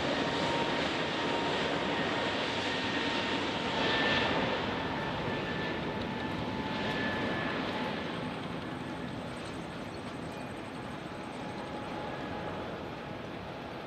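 Jet airliner taking off, its engines at takeoff power: a steady noise with faint whining tones, loudest about four seconds in and then slowly getting quieter.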